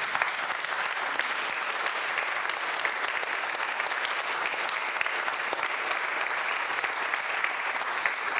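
A congregation applauding, many people clapping at an even level.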